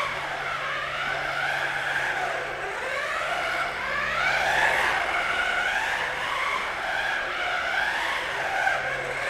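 Brushless mini RC car's electric motor whining through a fast lap, its pitch rising and falling again and again with the throttle, with tyres skidding on the track.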